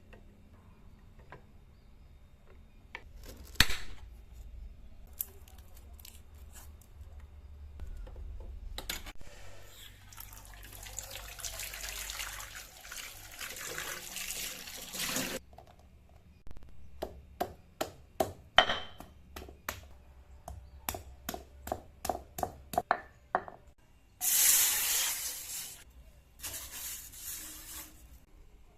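Kitchen preparation sounds: water running for several seconds, then a run of sharp knocks at about three a second, then more short bursts of running water near the end.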